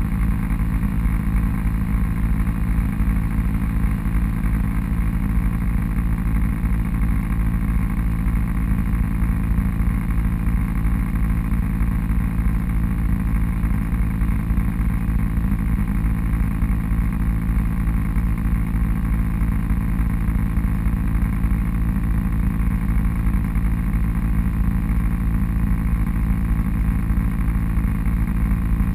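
Off-road vehicle engine running at a steady speed, a constant low drone that hardly changes.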